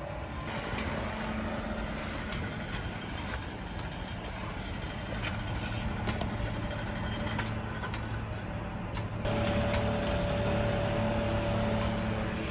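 Small electric cooling fans running with a steady hum: the CPU-cooler fans and a small desk fan cooling a thermoelectric generator on a wood stove's chimney pipe. About nine seconds in the hum gets louder and a higher tone joins it, with a few light clicks throughout.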